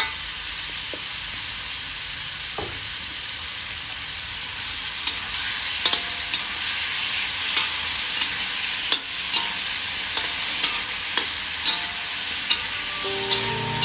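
Pineapple chunks and pork sizzling in oil in a black wok: a steady frying hiss, with a metal spatula stirring and scraping against the wok in sharp clicks that come more often from about five seconds in.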